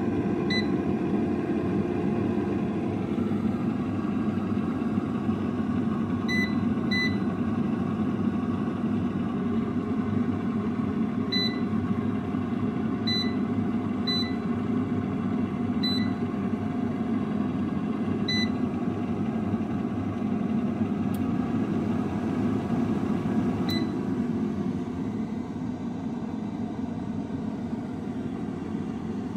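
Cosori air fryer running with a steady whir, while its touch-control panel gives about nine short, high single beeps as buttons are pressed, two of them in a quick pair about six seconds in.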